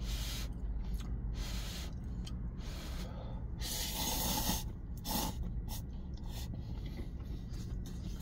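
A person slurping cup noodles with chopsticks: a series of noisy slurps, the longest and loudest about four seconds in.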